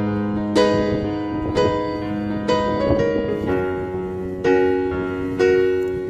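Background piano music: slow sustained chords, a new chord struck about once a second.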